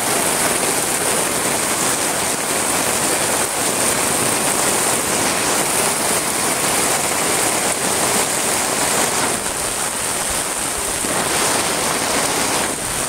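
Heavy rain pouring onto a flooded street, a steady, dense hiss of rain striking standing water and pavement.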